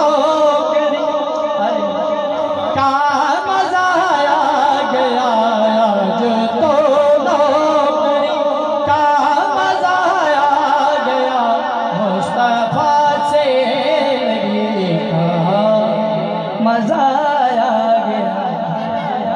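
A man singing a naat, an Islamic devotional poem, unaccompanied into a microphone over a public-address system, in long, wavering, ornamented notes.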